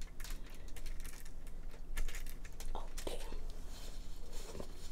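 Fingers picking food scraps off aluminium foil: a steady scatter of light crinkles and clicks.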